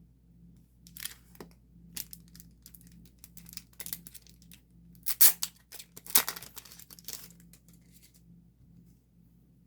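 Crinkling and tearing of plastic or paper packaging being handled by hand, as photocards are unpacked and sorted. A run of rustles lasts from about one second in to about eight seconds, with the sharpest, loudest tears a little past the middle.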